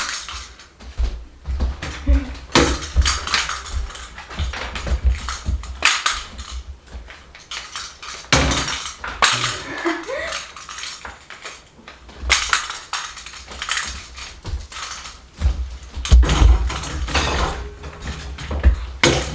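Irregular knocks and clatters of hard plastic as a Moluccan cockatoo clambers about and knocks a hard plastic toy ball around.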